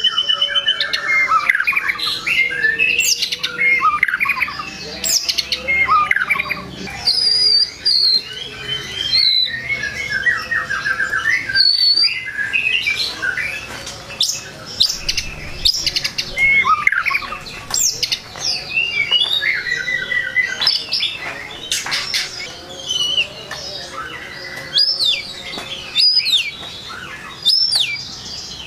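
White-rumped shama singing a long, varied stream of loud whistles, sweeping notes, quick repeated-note trills and harsh calls, with only brief pauses. This is the full-repertoire song (gacor full isian) that keepers play to rile other shamas.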